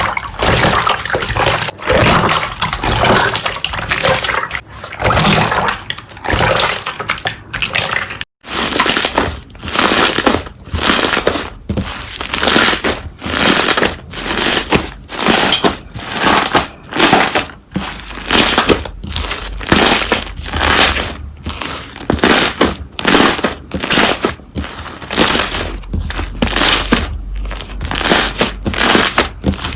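Slime being worked by hand, with crackling and squishing. It is continuous at first, then after a brief break comes in regular squeezes, about one and a half a second.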